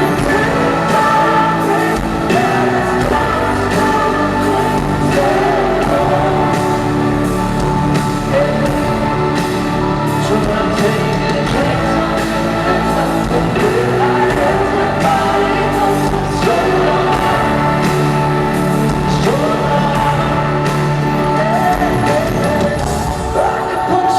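Live pop music played by a band at a concert, with a sung vocal line that holds and bends long notes.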